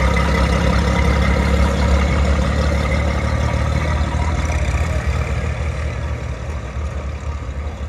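Minneapolis-Moline G900 tractor's six-cylinder engine running steadily as the tractor drives past, fading over the last couple of seconds as it pulls away.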